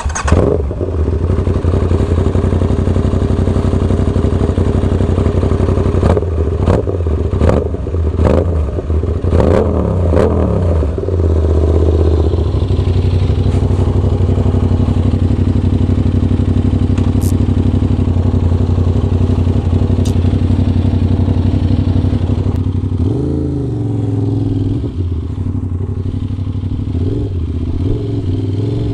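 Aprilia RS 660's parallel-twin engine running at a steady idle. It is blipped with a series of quick throttle revs a few seconds in, and revved once more near the end.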